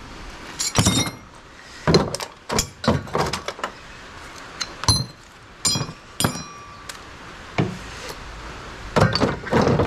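Small scrap metal pieces, bolts and fittings, clinking and clattering as they are handled and dropped into a steel dish and against a pickup magnet. It is a string of sharp knocks, with a few ringing metallic clinks around the middle.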